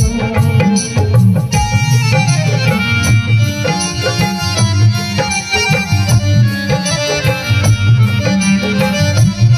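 Kumaoni folk music playing loudly: an instrumental passage with a steady hand-drum beat under sustained melodic lines, without singing.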